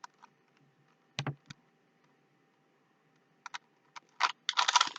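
Plastic Rubik's Cube faces being twisted by hand: scattered sharp clicks, then a quick run of turns near the end.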